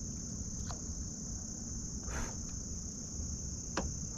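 Insects calling in a steady, unbroken high-pitched chorus, with a low rumble underneath and a few faint brief sounds about two seconds and nearly four seconds in.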